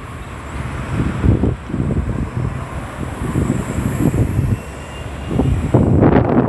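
Road traffic: vehicles driving past, engines and tyres, the sound swelling and fading several times as they pass.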